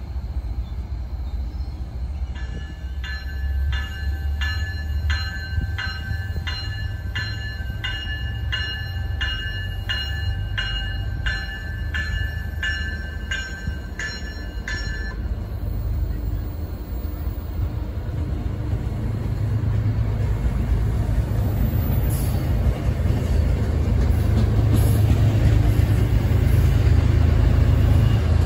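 MBTA commuter train passing. A bell rings steadily, a little over once a second, for about twelve seconds and then stops. Under it the deep rumble of the train grows louder toward the end as the diesel locomotive pushing at the rear draws near.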